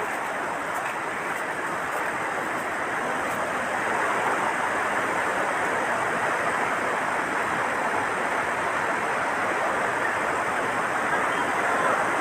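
Floodwater rushing through a dam's opened gates: a steady roar that grows a little louder about four seconds in.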